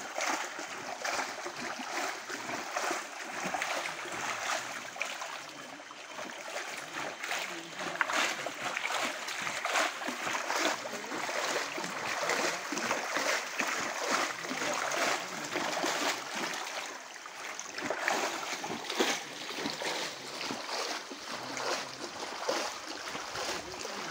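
Shallow stream water splashing and sloshing as someone wades and dips a cloth sack through it, in irregular splashes.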